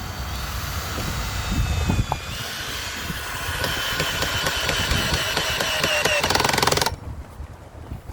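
A power tool running with a whining tone that dips slightly in pitch, then cut off abruptly about seven seconds in.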